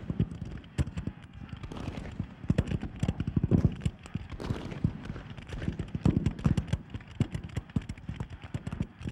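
Massed musket fire from a Civil War re-enactment battle line: many shots crackling in quick, irregular succession, heaviest about three seconds in and again around six seconds.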